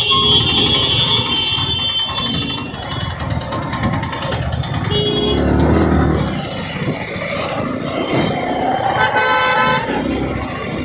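Congested road traffic: vehicle horns honk several times over the low running of motorcycle and scooter engines. One horn sounds for the first couple of seconds, a short toot comes about halfway, and another horn near the end.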